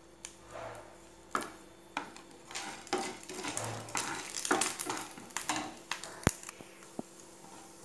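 Wooden spatula stirring chana dal and mustard seeds tempering in hot oil in a non-stick frying pan: irregular scrapes and clicks over a faint sizzle, with one sharp tap about six seconds in.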